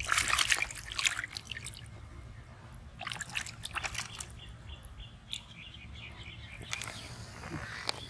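A caught fish thrashing and splashing in a plastic basin of water, in a burst at the start and another about three seconds in, with a few smaller splashes after.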